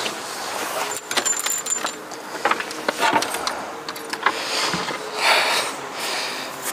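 Clothing and gear rustling, with scattered small clicks and clinks, as people move and climb at a rooftop railing, over a steady background hum of city traffic.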